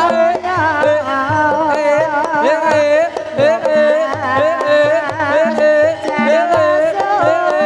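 Javanese ebeg (kuda kepang) dance music: a sinden singing a high, wavering, ornamented melody over steady hand-drum strokes and gamelan accompaniment.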